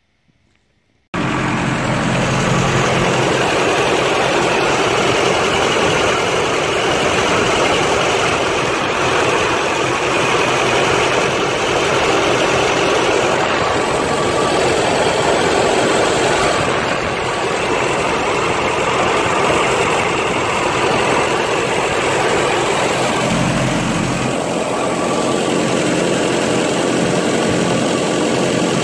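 Isuzu-built petrol engine of a 1995 Holden Rodeo running steadily at idle, with its new alternator/water pump belt turning. It comes in suddenly about a second in, after near silence.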